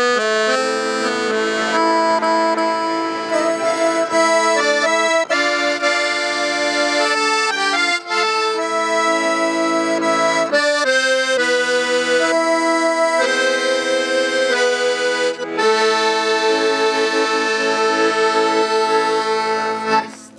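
Instrumental folk music with no singing: a melody of held notes over sustained chords, which stops just before the end.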